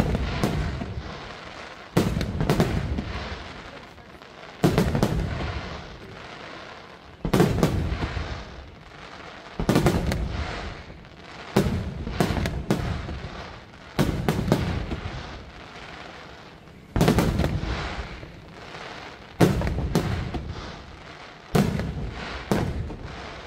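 Aerial firework shells bursting in a display, a sharp bang about every two seconds, each dying away over a second or two.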